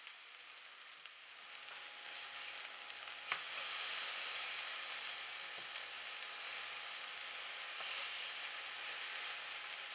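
Thick tomato slices sizzling in a hot, dry non-stick pan with no oil as their surface juice boils off. The sizzle grows louder over the first few seconds and then holds steady while the slices are turned with a wooden spatula, with one light knock about three seconds in.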